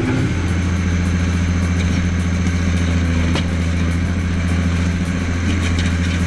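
Stump grinder's engine running at a steady speed: an even, low hum with one faint click midway.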